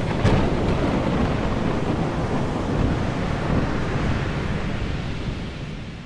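Stormy-sea sound effect: rushing wind and surf as a steady noisy roar that fades away toward the end.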